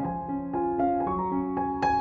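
Background piano music: a gentle melody of struck notes that ring and fade, a new note every quarter to half second.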